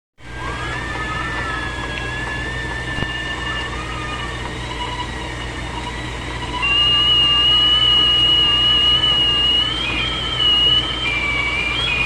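Kettle whistling at the boil, several wavering whistle tones sounding together over a steady low hum. About six and a half seconds in, a louder, higher whistle takes over and the sound gets louder, wobbling in pitch near the end.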